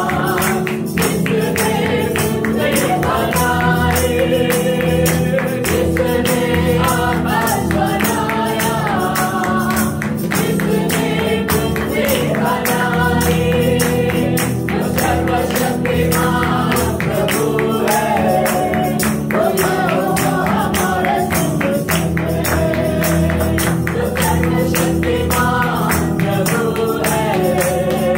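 Praise-and-worship music: a tambourine keeps a steady quick beat over sustained chords and a melody line.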